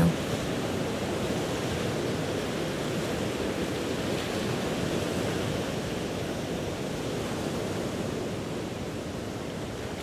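Ocean surf ambience: waves washing on a shore as a steady, even hiss with no single breaker standing out. It eases slightly towards the end.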